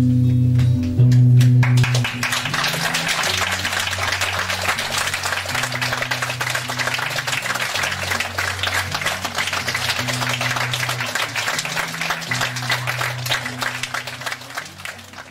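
An audience applauding over music with low, held guitar-like notes. The applause starts about two seconds in and fades out near the end.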